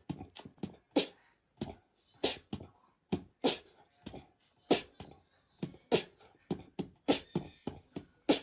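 A run of short, sharp taps at an uneven pace, about three a second, with silence between them.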